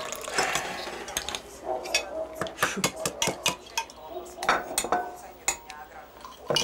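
Crockery and cutlery clinking on a breakfast table: mugs, plates and spoons knocking together in a scattered series of short, sharp clinks.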